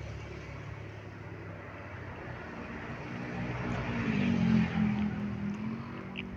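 A motor vehicle passing close by: its engine hum grows louder to a peak about four and a half seconds in, then fades as it moves away.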